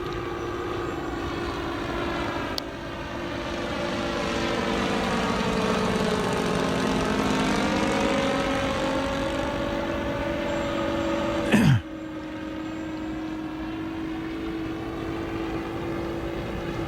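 Model Cessna 337 Skymaster's front and rear engines droning in flight, two separate steady notes, the sound swelling and fading as the plane passes. A short loud burst with a sharply falling pitch cuts in about twelve seconds in.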